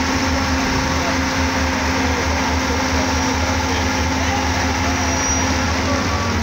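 Steady cabin noise inside a moving bus: engine drone and road rumble.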